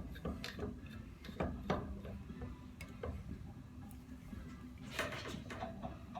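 Hand tools clicking and knocking against the metal parts of a Graco Fireball 300 pump as it is taken apart: irregular light clicks, with a few louder knocks.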